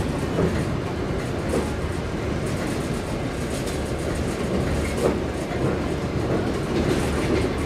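Trans-Siberian passenger train rolling on the rails: a steady rumble with faint irregular clicks from the wheels.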